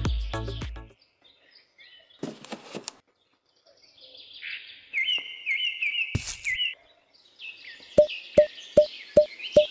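Music stops about a second in, then small birds chirp in quick repeated phrases. A short rustle comes before the chirping, a sharp click falls in the middle, and about six light, evenly spaced taps sound near the end.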